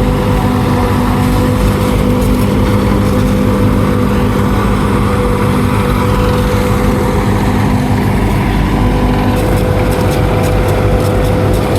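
Farm machinery engines running steadily under load, a continuous even drone with no change in speed, with faint rapid ticking near the end.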